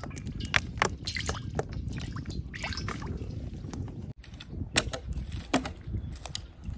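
Cooking oil poured into a wok over a wood fire, with scattered crackles and a low steady rumble. About four seconds in the sound cuts to sticks and branches being handled as firewood is gathered, with a few sharp knocks.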